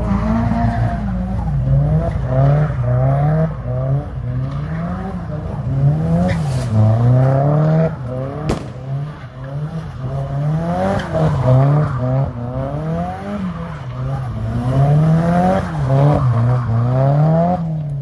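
A car engine revving hard up and down over and over, its pitch climbing and dropping about once a second, with tyres squealing as the car slides sideways.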